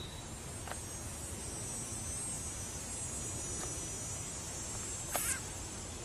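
Insects trilling in a steady, high-pitched buzz, with a short sharp click about five seconds in.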